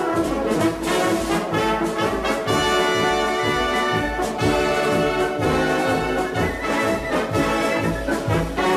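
Orchestral background music with brass to the fore, holding a melody over a steady low beat.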